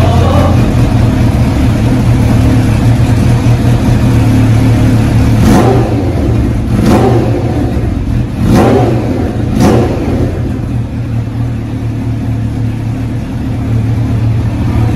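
Kawasaki Ninja H2's supercharged inline-four engine idling, with the throttle blipped four times in quick succession about halfway through.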